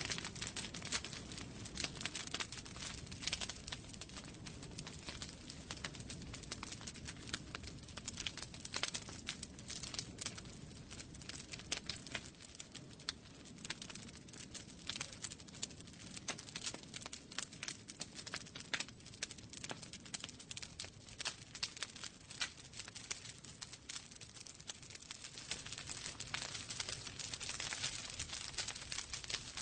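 Wood fire burning in a fireplace: a steady low rush of flame under many irregular sharp crackles and pops.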